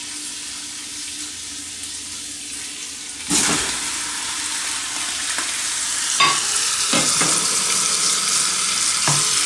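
Raw chicken pieces slid off a plate into a hot pot of oil and onions: a steady sizzle jumps suddenly louder about three seconds in as the chicken hits the fat, and keeps frying, with a few short knocks later on.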